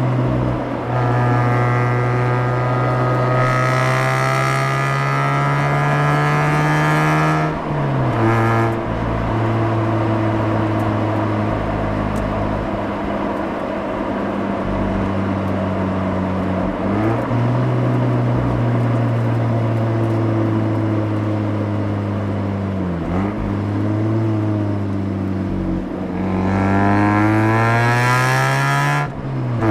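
Mazda RX-8's twin-rotor Renesis rotary engine heard at the exhaust, pulling up through the revs under acceleration, dropping sharply in pitch at a gear change about seven seconds in, then cruising at fairly steady revs. Near the end it revs hard again and drops at another upshift.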